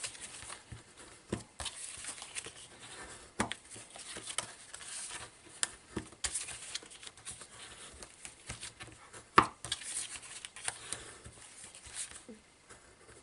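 Paper being folded and its creases pressed and run over again by hand: crinkling and rustling with many scattered sharp clicks and taps, one louder click about nine and a half seconds in.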